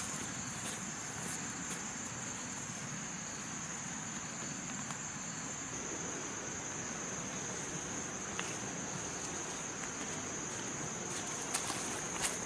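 Steady high-pitched drone of insects, with a few light footsteps near the end.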